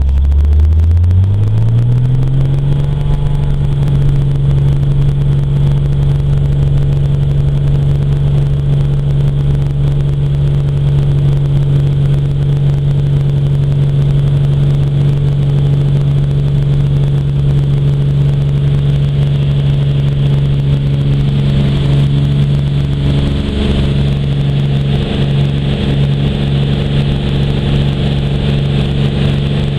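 Bellanca Super Viking's piston engine and propeller heard from inside the cockpit, rising in pitch over the first two seconds as power comes up for the takeoff roll, then a steady loud drone through the run and climb-out, with a slight change in tone about three-quarters of the way through.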